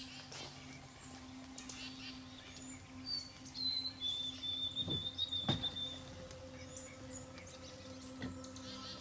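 Wild songbirds chirping and calling in a dawn chorus, with one long, steady whistled note about halfway through. A couple of soft knocks come a little after the middle, over a faint steady low hum.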